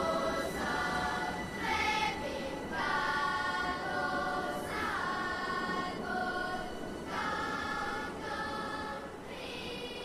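Background music: a choir singing held notes in slow phrases.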